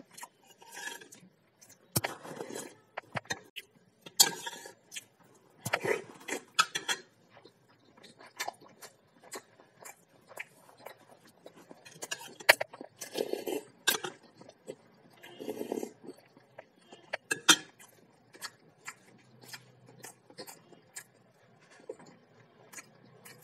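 Metal spoon clinking and scraping against a bowl in a string of sharp clicks, with close mouth sounds of chewing and eating between them.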